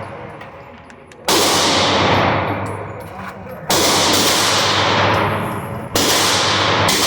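Three gunshots about two and a half seconds apart, each a sharp crack followed by a long echoing tail that fades slowly, over a steady low hum.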